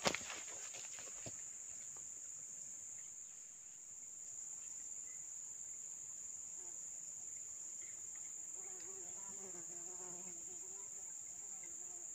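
Steady, high-pitched drone of insects. A sharp click sounds right at the start and a weaker one about a second later. From about halfway through, a lower wavering buzz joins in.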